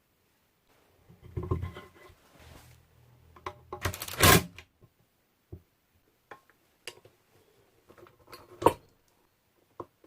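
Irregular clicks, knocks and short scrapes of mixer parts and tools being handled, loudest about four seconds in and again near the end.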